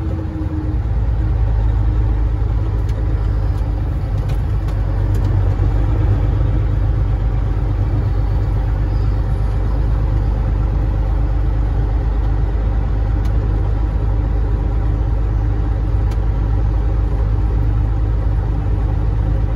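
Caterpillar 3406E inline-six diesel of a Freightliner FLD120 running steadily as the truck rolls slowly through a yard, a low drone heard from inside the cab. A few faint clicks.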